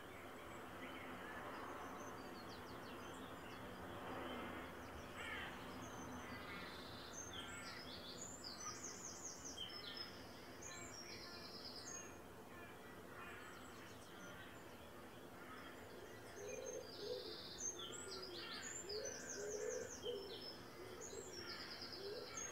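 Wild birds calling: a small songbird sings high trilling phrases in two bouts about ten seconds apart, and low repeated calls come in during the second half, over faint steady background noise.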